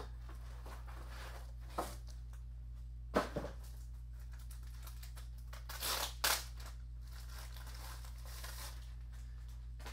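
Packaging being handled as a switch power supply comes out of its box: a few short rustles and crinkles of the plastic bag and cardboard, the sharpest about three seconds in and a cluster near six seconds, over a steady low hum.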